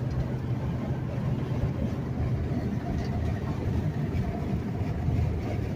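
Steady engine hum and road noise inside a truck cab cruising at highway speed.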